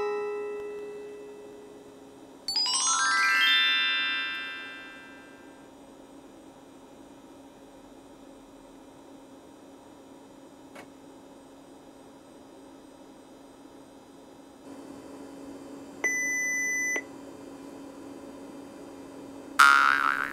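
Retro PC boot sequence over a steady machine hum: a chime fading at the start, then a rising chime about two seconds in. Later the computer's internal beeper sounds one steady one-second beep, which comes with the hard-disk error at startup. A short, loud burst follows near the end.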